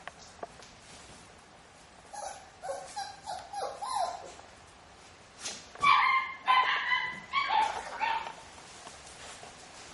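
Puppies yipping and barking: a run of short high yips about two seconds in, then a louder burst of barks from about six to eight seconds in.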